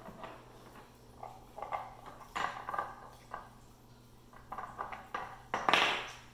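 Puppy nosing a Nina Ottosson dog puzzle, knocking its hard cylindrical pegs against the plastic board and the floor in irregular clacks and rattles. The loudest clatter comes near the end.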